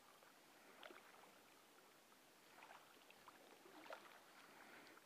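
Near silence on calm water, broken by a few faint drips and small splashes from a kayak paddle, about a second in, midway and near the end.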